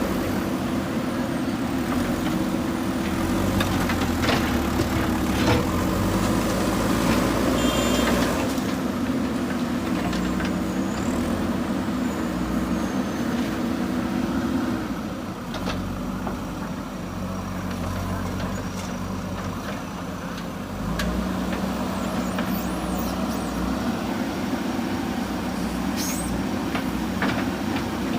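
JCB 3DX backhoe loader's diesel engine running steadily under work, easing off about halfway through and picking up again some six seconds later, with a few sharp knocks scattered through.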